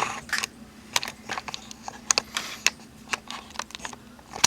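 Irregular sharp plastic clicks and taps from a Dell Latitude D520 laptop's case being handled and snapped together, a dozen or so over a few seconds, with a faint steady hum underneath.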